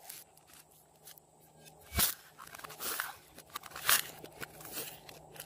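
Sticky crackling and clicking as a rainbow-shaped slab of clay is peeled up off slime, with a sharp click about two seconds in and the loudest crackle about four seconds in.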